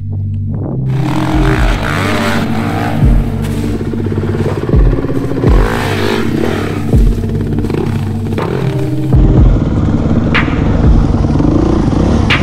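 Enduro dirt bike engines running and revving over background music with a regular low beat.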